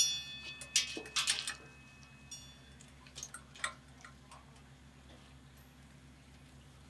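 A sharp metallic clink with a brief ringing right at the start, then a few light clicks and rustles as a wiring harness and its connectors are handled on a motorcycle frame, settling to quiet room tone after about four seconds.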